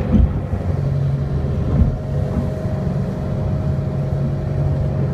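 Motorboat engine running steadily under way, a low drone, with two low thumps, one right at the start and one a little under two seconds in.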